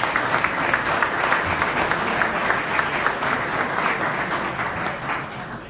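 Audience applauding, the clapping fading away at the end.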